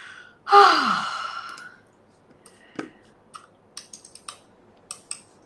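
A woman lets out a long, breathy sigh about half a second in, its pitch falling as it trails off. It is followed by a few light, scattered clicks.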